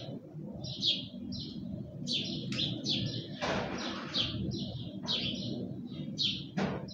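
Small birds chirping: short, high notes repeated about two to three times a second, with one longer, noisier call near the middle, over a steady low background rumble.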